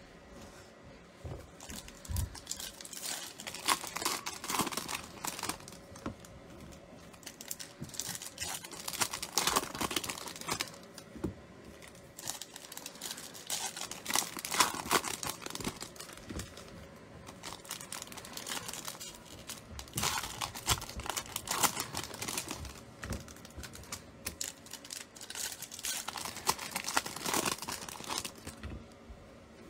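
Foil trading-card pack wrappers crinkling and tearing as packs are ripped open by hand, in several irregular bouts a few seconds apart.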